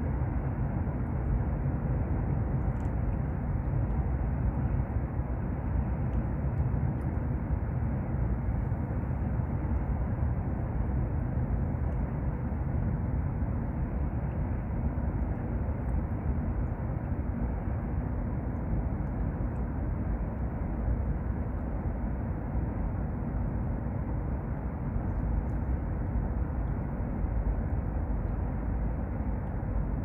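Steady, low outdoor rumble with no distinct events.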